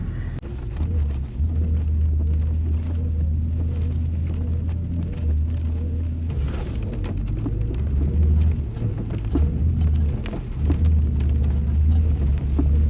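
Low, steady rumble of a 4x4 truck driving a rough off-road trail, with scattered ticks and knocks over it.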